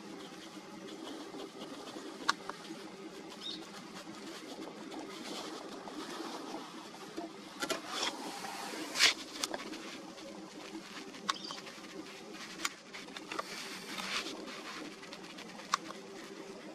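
Camera handling noise while tracking a bird in flight: a steady low hum under scattered sharp clicks and taps, with a cluster of louder knocks about eight to nine seconds in.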